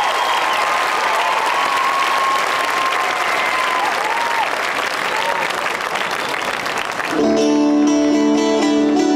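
Audience applauding, with a few whistles. About seven seconds in the applause falls away and a twelve-string acoustic guitar starts playing ringing chords.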